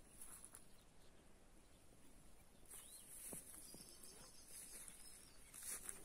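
Near silence: faint outdoor ambience with a few faint bird chirps.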